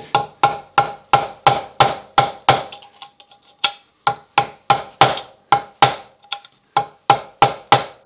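Hammer striking metal in quick, even blows, about three a second, each with a short metallic ring, with a brief lull about three seconds in. The blows are working loose a seized screw that would not turn.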